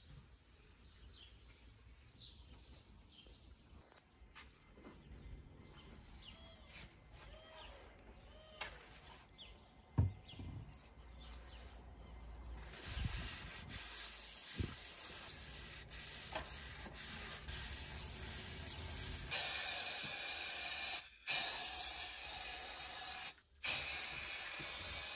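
Birds chirping for about the first half, then a steady hiss of compressed air through a powder-coating spray gun. The hiss gets louder about two-thirds of the way in and cuts out briefly twice.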